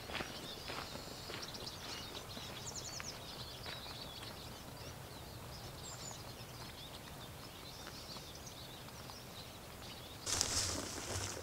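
Small birds chirping and singing in quick trills in a forest, over a steady outdoor hiss, with faint footsteps on a leafy path in the first moments. About ten seconds in, a brief loud rustle.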